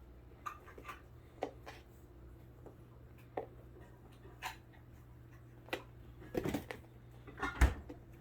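Scattered light taps and knocks of kittens playing with a cat toy wand, with two short clusters of louder thumps near the end.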